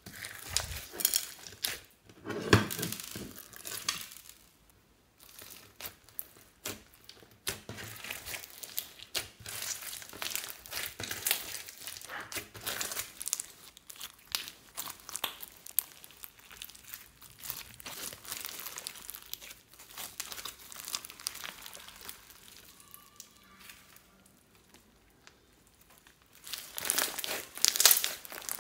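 Hands squeezing and kneading clear slime loaded with beads, sequins and foam balls, making sticky crackling and clicking in irregular bursts. There is a lull near the end, then a few louder squeezes.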